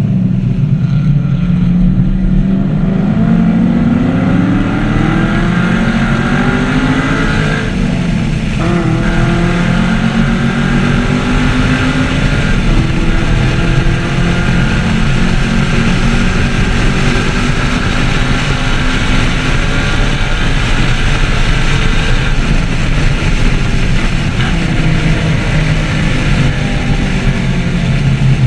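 2014 Chevrolet Camaro SS 1LE's V8 under hard acceleration on track. The revs climb for several seconds, break briefly for an upshift about eight seconds in, then pull on at high speed with further rises and falls.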